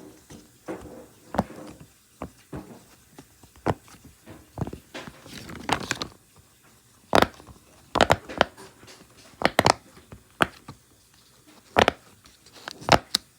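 Fidget toys being handled, making irregular sharp clicks and snaps, with a stretch of rustling about halfway through.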